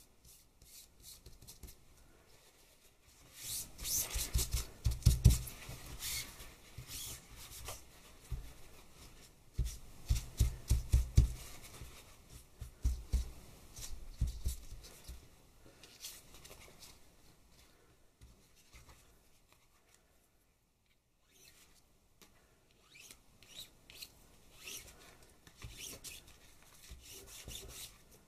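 Folded cloth rubbed by hand in quick strokes over the back of smooth card pressed onto oil paint, burnishing a hand-pulled monoprint. Two long spells of rubbing with dull thumps, then lighter scattered rubbing and soft taps after a short pause.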